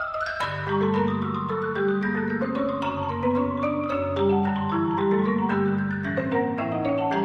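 Marimba music: long rolled notes in the low register sustain under a melody of shorter notes moving above them.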